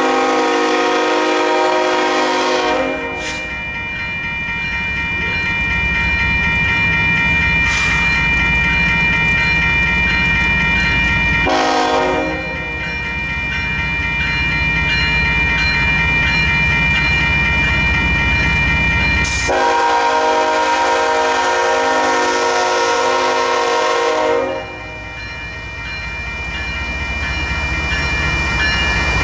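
Grade-crossing warning bell ringing steadily while the approaching CSX diesel locomotive 3353 sounds its air horn: a long blast that ends about three seconds in, a short blast about twelve seconds in, and a long blast from about twenty to twenty-five seconds in. Together these make up the end of the standard long-long-short-long warning for a grade crossing. The locomotive's rumble grows louder as it reaches the crossing near the end.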